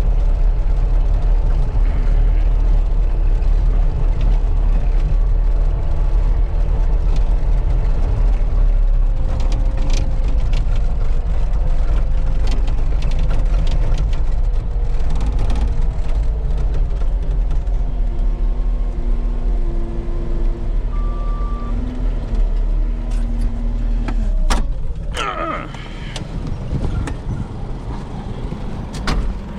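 A vehicle engine running with a steady low rumble, which drops away about 25 seconds in.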